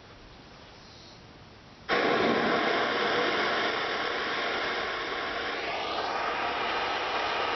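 Small handheld propane torch flame, a loud steady rushing hiss that starts abruptly about two seconds in, heating the seam metal and lead-free body solder.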